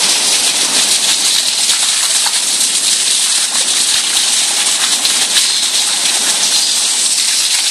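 Water rushing steadily, an even hiss with no breaks or changes.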